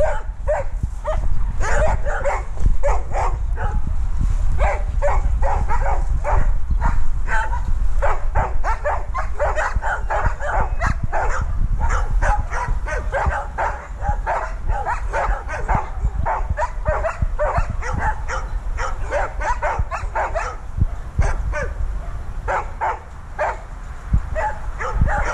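A dog barking rapidly and without pause after being left alone in a kennel enclosure: the distress of a dog with separation anxiety.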